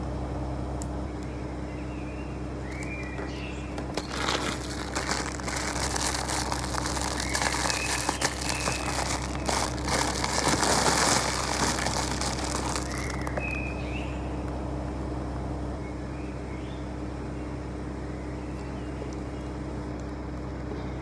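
Clear plastic packaging crinkled and pulled open by hand, a rustling crackle from about four seconds in until about thirteen seconds, over a steady low hum.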